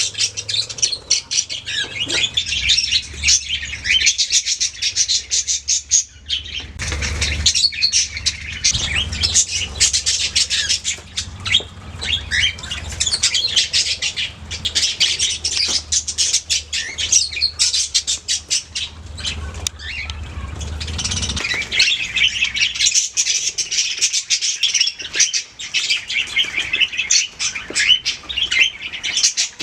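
A group of budgerigars (budgies) chirping and warbling nonstop, many quick calls overlapping. A low rumble runs under the chirping for most of the middle of the stretch.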